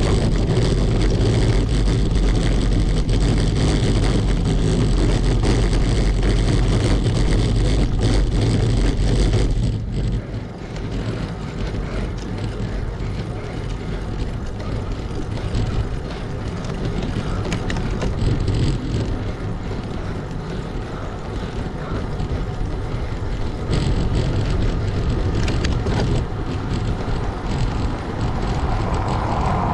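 Bicycle riding over cobblestones: a loud, dense rattling and vibration. About ten seconds in it drops sharply as the wheels reach smooth asphalt, leaving a softer steady rolling and wind noise with occasional small clicks.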